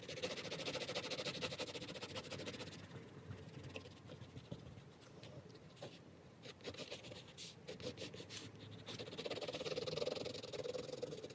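Derwent Inktense pencil hatching on paper in fast back-and-forth strokes: a dry, rapid scratching. It is busiest at the start and again near the end, with looser strokes in between.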